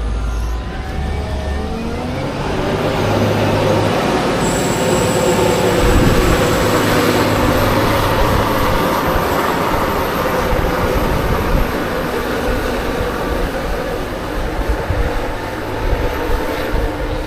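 Heavy farm machinery engine revving up over the first couple of seconds, then running hard under load with a loud, dense mechanical noise.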